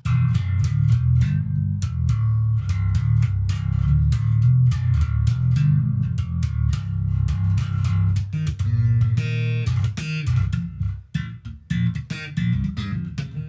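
Squier six-string electric bass played fingerstyle: a fast, continuous run of low plucked notes that turns choppier, with short gaps and some higher notes, in the last five seconds or so.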